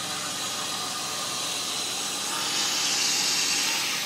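BMW E34 engine running with a steady hiss, which grows louder for about a second from two and a half seconds in.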